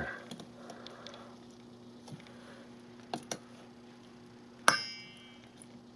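Wire potato masher crushing grapes in a stainless steel bowl: faint scattered clicks and taps, two close together a little past halfway, then one sharp metallic clink with a brief ring as the masher strikes the bowl.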